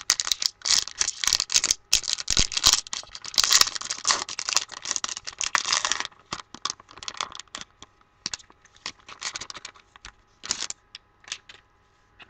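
A 2015 Topps Gypsy Queen baseball card pack wrapper being torn open and crinkled by hand, a dense run of crackling and tearing for about six seconds, then scattered softer crinkles and clicks as the cards come out.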